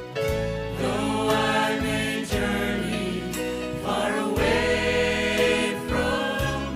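Gospel music performed live: a choir singing in harmony over instrumental accompaniment with a steady beat.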